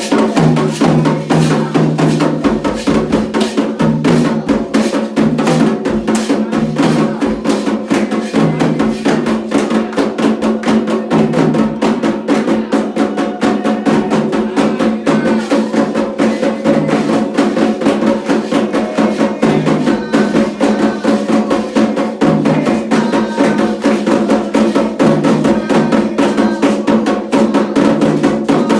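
Afro-Brazilian Candomblé ritual percussion: drums played in a fast, dense, unbroken rhythm with sharp wood-block-like clicks running through it.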